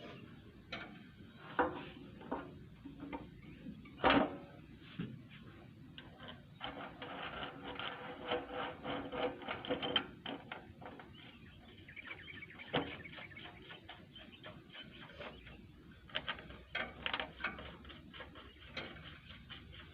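Oil being topped up on a stopped excavator: irregular clicks and knocks of containers and metal parts being handled, with two stretches of rapid clicking and a few sharper knocks.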